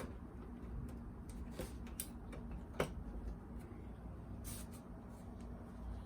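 A few scattered light clicks and taps of a small screwdriver and loose parts being handled on a cassette deck's casing, the sharpest one near the middle, over a steady low hum.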